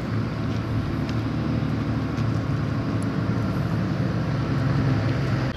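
A motor vehicle engine running steadily, a low hum that grows slightly louder near the end.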